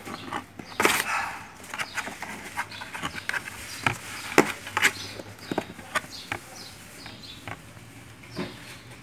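Kitten's claws scratching and scrabbling against a cardboard shoebox while a hand knocks the box: irregular scratches, taps and rustles. There is a louder scrape about a second in.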